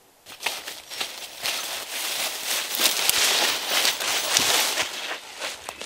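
Dry leaves, twigs and brush crackling and rustling as someone pushes through thick undergrowth on foot, starting suddenly about a third of a second in.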